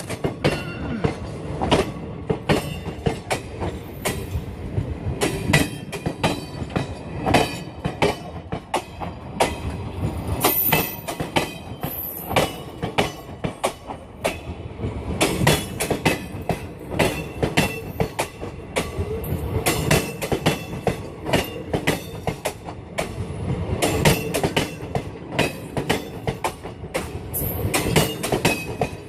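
Passenger train rolling through track points and crossings, its wheels clattering in a dense, irregular run of clicks over the rail joints and frogs, with brief high wheel squeal about ten seconds in.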